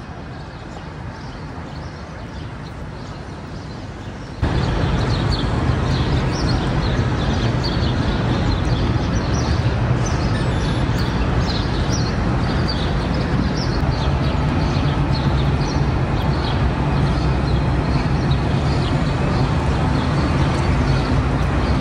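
Outdoor city ambience: a steady low mechanical hum with birds chirping over it. It gets suddenly much louder about four seconds in.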